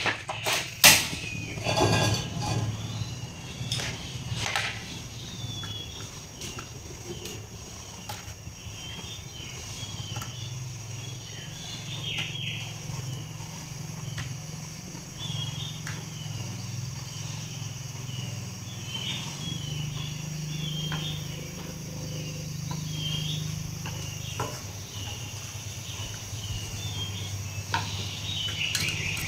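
Outdoor ambience: birds chirping and insects over a low steady hum, with a few sharp knocks in the first two seconds.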